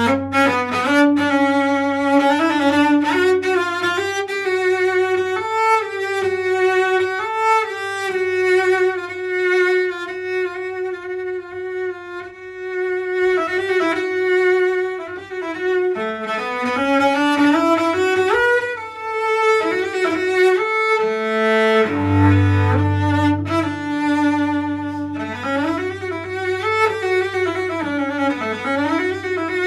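Solo cello bowed in a fast tarantella, a run of quick notes with a strong low note about two-thirds of the way through.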